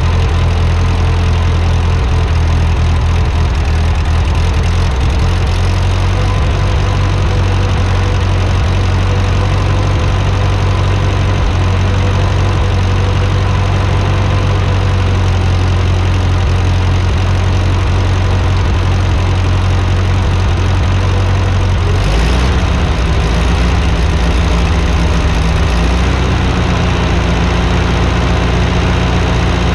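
Ford 8N tractor's four-cylinder flathead gasoline engine idling steadily on its freshly cleaned and rebuilt carburetor. Its speed changes twice near the end, with a brief lift and then a settle to a slightly different idle.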